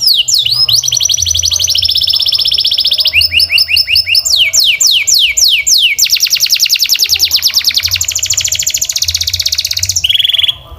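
Domestic canary singing a fast song of repeated phrases. It runs rows of quick downward-sweeping whistles, then rapid trills of short notes, and ends in a brief lower held note before breaking off just before the end.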